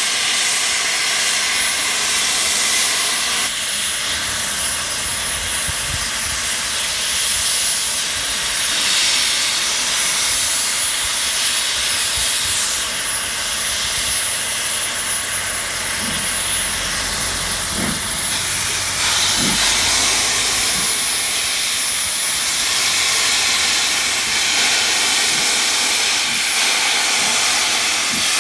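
Steam locomotive hauling a passenger train, letting off a loud, steady hiss of steam from the front of the engine, the cylinder drain cocks blowing. A few low thuds come a little past the middle.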